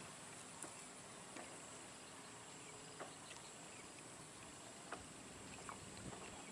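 Near silence: faint outdoor background hiss with a few soft, scattered clicks.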